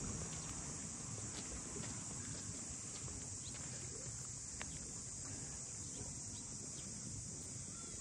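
Cicadas shrilling in one steady, unbroken high-pitched drone, over a low rumble and a few faint ticks.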